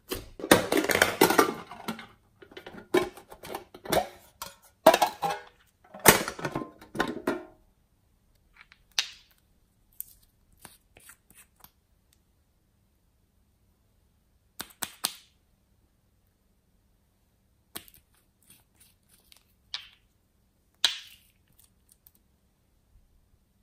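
Hands squeezing and kneading clear pink glitter slime, with wet crackling pops of trapped air in close bursts for about the first seven seconds. After that come only scattered small clicks and squelches.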